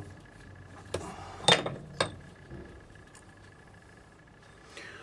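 A few sharp clinks and knocks of a machined part and tools being handled, the loudest two about a second and a half and two seconds in.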